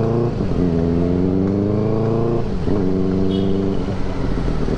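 Benelli TNT 600i's inline-four engine through a loud exhaust, accelerating through the gears. The revs drop at a shift right at the start, climb for about two seconds, drop at a second shift about two and a half seconds in, then hold steady.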